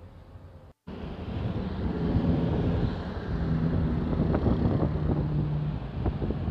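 Moving city bus running along a street: a steady engine hum and road rumble with wind on the microphone. The sound cuts out briefly about a second in, then comes back louder.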